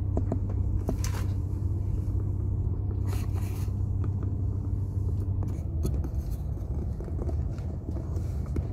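Car heard from inside the cabin while driving slowly: a steady low rumble of engine and tyres, with a few brief scrapes and clicks about a second in and again around three seconds in.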